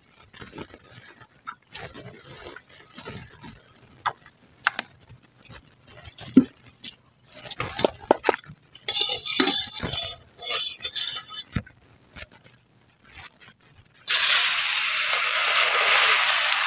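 Scattered light clinks of metal pots and utensils, with two short hissing spells in the middle. About 14 s in, a loud sizzle starts abruptly as fish are dropped into hot oil in an aluminium kadai, and keeps going: the fish frying.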